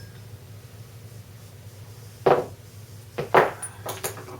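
A few short knocks and clinks of a motorcycle chain riveting tool being handled as it is backed off and taken off the chain, two of them louder, about halfway through and a second later. A low steady hum runs underneath.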